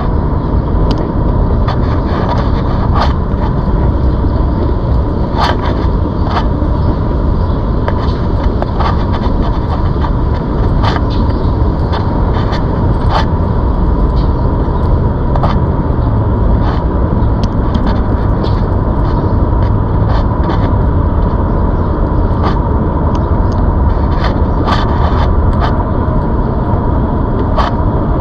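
Wind rushing over the microphone while riding a ZOOZ electric bike. Under it runs a steady high whine, with scattered clicks and rattles throughout.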